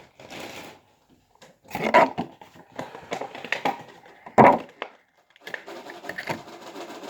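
Toy packaging being handled: plastic and cardboard rustling with irregular clicks, and two sharper knocks about two seconds and four and a half seconds in.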